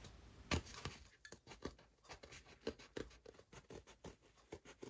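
Swiss Army knife cutting through a sheet of gasket paper: a run of faint short snips, a few a second, one of them louder about half a second in.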